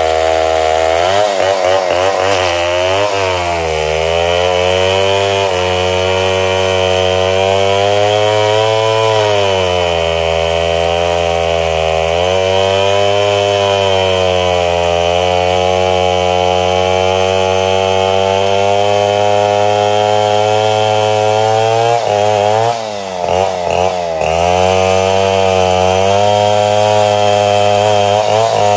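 Chainsaw running at high revs while cutting wood. Its engine note sags and recovers several times as the chain loads up in the cut, with a deeper stumble and drop in loudness a little past twenty seconds in.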